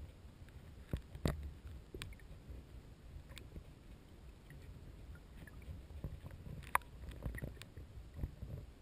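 Kayak paddling heard underwater through a GoPro Hero2's waterproof housing: a muffled low rumble of moving water with scattered sharp clicks and knocks, the loudest a little after a second in and just before seven seconds in.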